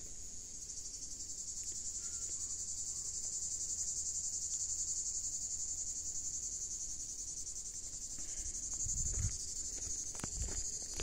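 Steady, high-pitched insect chorus, a dense buzzing trill that swells a little in the middle. Near the end a few footsteps and thumps on a dry dirt path.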